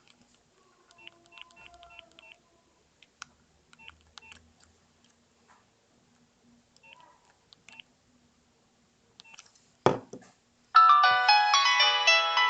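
Nokia 5070 mobile phone: faint clicks and short high beeps, a sharp click just before ten seconds in, then a loud polyphonic ringtone melody starts playing from the phone's speaker near the end.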